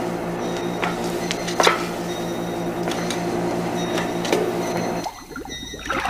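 Boat's multi-cylinder inboard engine running in its engine room: a steady, rhythmic mechanical clatter over a hum pulsing about four times a second, with a couple of sharper clanks. It cuts off about five seconds in.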